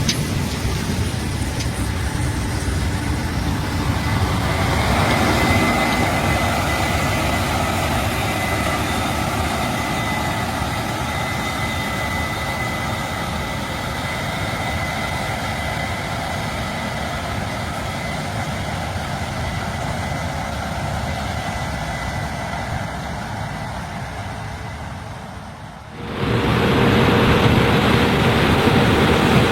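Case IH 8260 Axial-Flow combine running steadily as it harvests corn, engine and threshing noise with a thin high whine through the middle. Near the end the sound cuts abruptly to a louder, duller machine rumble.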